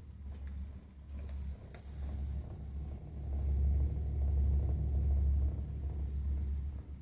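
Burnham Alpine condensing gas boiler making a low rumbling noise that swells louder for a few seconds midway, with a few light ticks about a second in.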